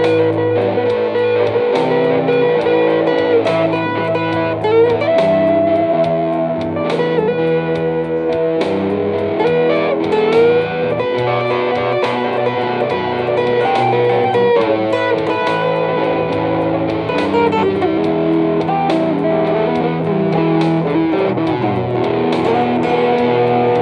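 Telecaster-style electric guitar played through a small combo amp: a blues instrumental of held notes, with string bends around the middle.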